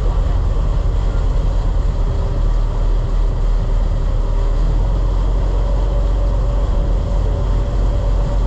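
Large fishing boat's engines running steadily underway: a deep, even rumble that does not change.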